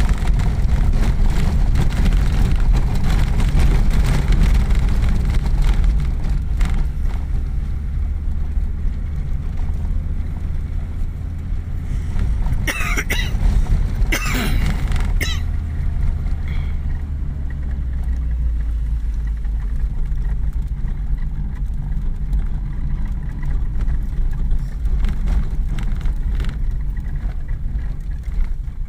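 Engine drone and road noise inside the cab of an old vehicle driving slowly over a rough dirt road, with the body and dashboard rattling. A brief burst of sharper rattling and squeaking comes about halfway through.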